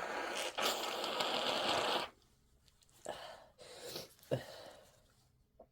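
Breathy, sniffly sounds of a person with a cold working up induced sneezes: a loud, even rushing breath for about two seconds, broken once, then a few soft short breaths.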